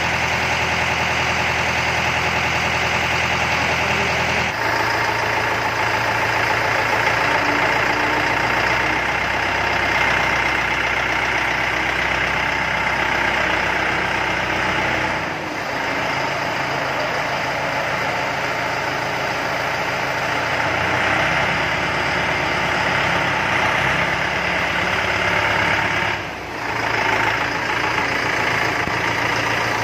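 Mahindra 4025 tractor's diesel engine running steadily, its low note shifting about four seconds in.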